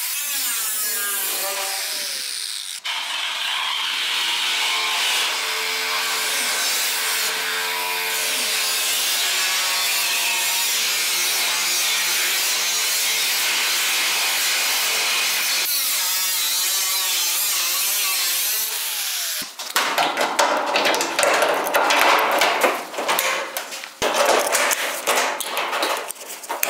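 A power tool cutting through the sheet steel of a 1956 Chrysler Windsor's body: a steady motor whine with a high hiss, which about twenty seconds in turns to a louder, rough, choppy cutting noise.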